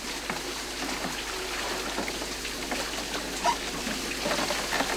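Water pouring and splashing steadily from the wooden buckets of an animal-driven noria (bucket water wheel) as they tip over at the top, with scattered small knocks from the turning wheel.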